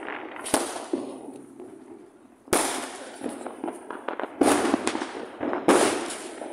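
Diwali firecrackers and fireworks going off: four sudden loud bangs spaced one to two seconds apart, each fading out over about a second.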